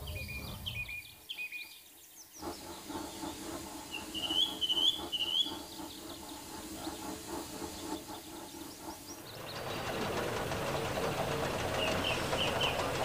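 Birds chirping over a steam locomotive running on the track: a regular clicking, chuffing rhythm, then a louder steady rushing noise from about nine seconds in.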